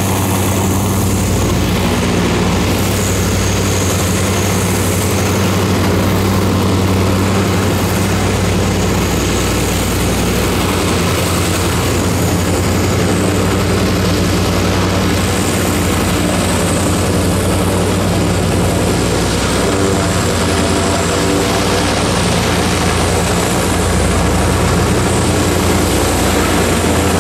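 Zeppelin NT airship's propeller engines running with a steady, unchanging drone.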